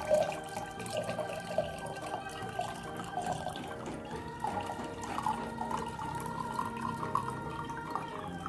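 Hot lemongrass decoction being poured through a strainer into a glass, with irregular splashing and trickling, over steady background electronic organ music.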